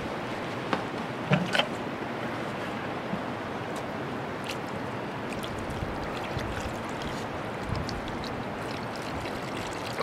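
Steady rushing of a river, with a few light knocks in the first two seconds.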